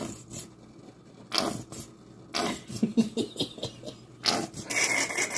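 Plastic squeeze bottle of yellow mustard sputtering as it is squeezed, giving wet, fart-like squirts of air and mustard in three bursts.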